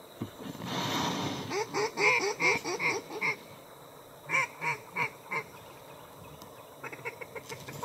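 Mallard-hen quacking from a hunter's duck call: a descending run of about seven quacks, a pause, then four more, with a faint quick chatter near the end.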